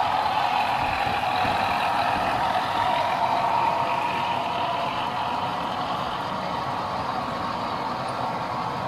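Model goods train running past: the Class 31 model diesel's DCC sound-decoder engine note together with the rolling of the wagon wheels on the track, slowly fading as the train draws away.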